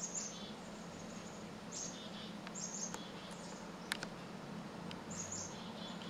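Chickadees calling in short bursts about four times, each a quick high note dropping to lower buzzy notes. A few sharp clicks come in the middle.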